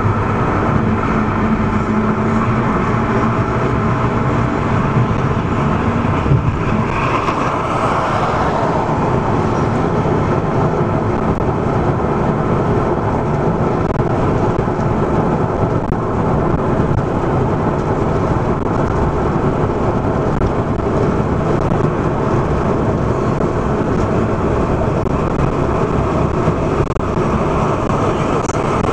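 Steady road noise heard from inside a moving car: tyre and engine noise while driving, swelling briefly about seven seconds in.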